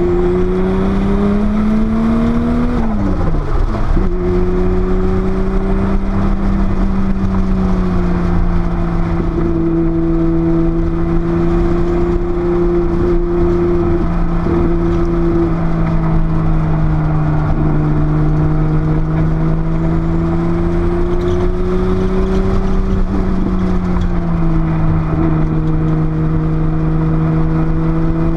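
Porsche 930 Turbo's air-cooled turbocharged flat-six at speed on track. The engine note climbs, drops sharply about three seconds in, then holds fairly steady with slow rises and falls and another dip near the end. Steady wind and road noise runs underneath.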